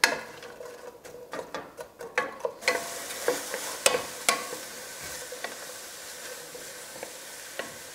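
Diced onions and green bell pepper frying in olive oil in a stainless steel pan, stirred with a wooden spoon: a run of taps and scrapes of the spoon against the pan, then a steady sizzle that sets in about two and a half seconds in, with a few more spoon taps.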